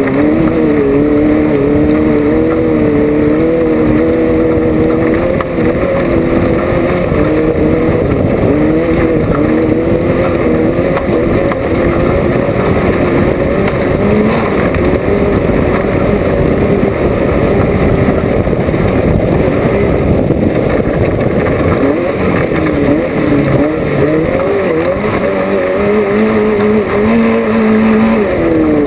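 Off-road race vehicle's engine running hard, its pitch wavering up and down with the throttle over a constant loud rumble and rattle from driving over rough ground.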